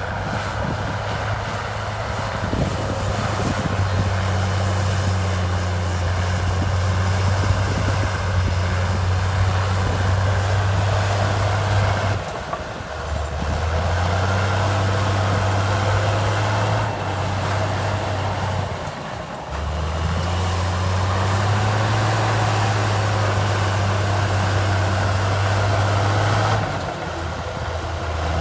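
Heavy diesel engine of an earthmoving machine running under load with a steady low hum, its note dropping and shifting briefly four times.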